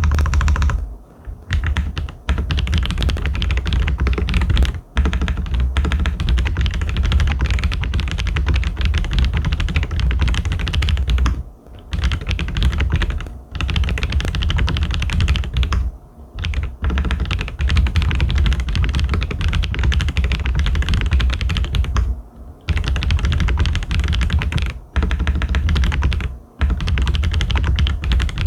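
Fast typing on a Xinmeng M87 mechanical keyboard fitted with lubed Akko Silver linear switches: a dense, rapid run of keystrokes, broken by short pauses several times.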